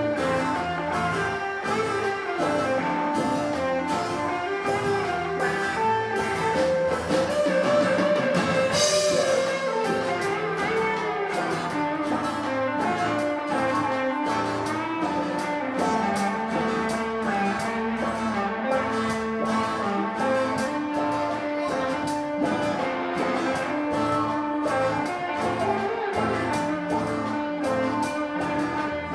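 Live rock band playing an instrumental passage: electric guitars and bass over a steady drum-kit beat, with a cymbal crash about nine seconds in.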